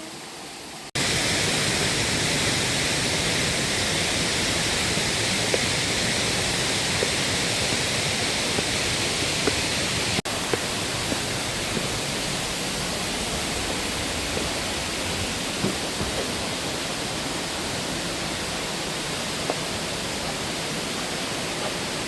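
A waterfall's steady rush of falling water, cutting in abruptly about a second in, with a momentary break about ten seconds in.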